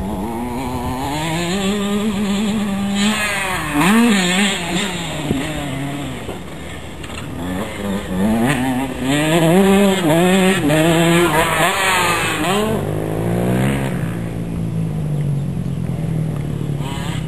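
KTM 85 SX two-stroke motocross bike ridden hard on a dirt track, its engine revving up and dropping back again and again with each throttle change and gear shift. It is loudest about four seconds in and again around ten seconds.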